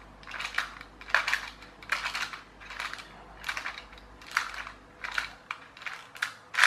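Plastic gear train of a clockwork toy tractor's motor turned by hand through its wheel, the plastic gear teeth clicking and rattling in short bursts about twice a second. A gear that had worked loose has been pushed back onto its shaft, and the whole train now turns.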